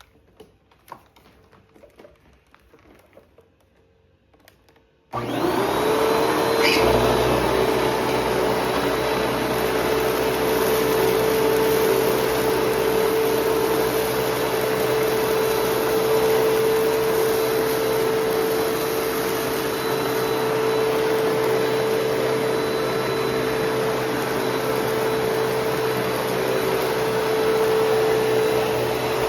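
Hoover Platinum Collection WindTunnel Bagless upright vacuum switched on about five seconds in, its motor winding up quickly to a steady whine and running at full speed. Before it starts there are only a few faint clicks.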